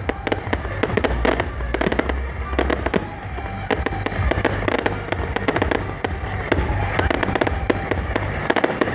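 Firecrackers popping in rapid, irregular strings over music with a heavy, steady bass.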